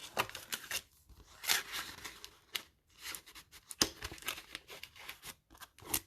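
Crinkling and rustling of a foil booster pack and a mailing envelope being handled, with short tearing sounds as the envelope's seal strip is peeled and pressed shut.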